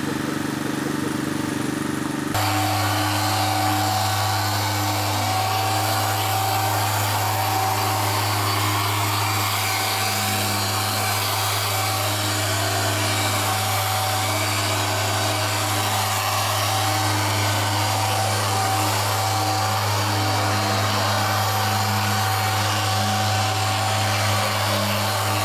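A machine polisher running steadily as it buffs car paint with a foam pad, a constant hum with a thin steady whine above it. For the first two seconds a different steady motor hum is heard, then the sound changes abruptly to the polisher.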